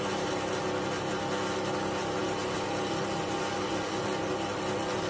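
Scheppach DP19 Vario bench drill press running without load, its motor and spindle turning steadily at about 620 rpm with an even hum.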